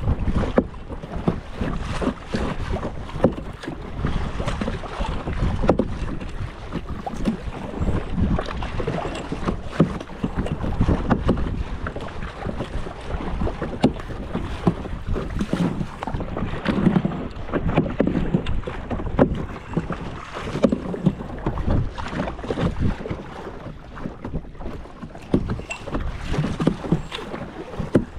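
Kayak paddles dipping and splashing in the water in irregular strokes, with small knocks and wind rumbling on the microphone.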